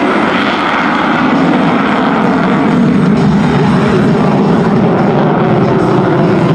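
F-35A's single Pratt & Whitney F135 afterburning turbofan running in afterburner as the fighter climbs away, a loud, steady jet noise.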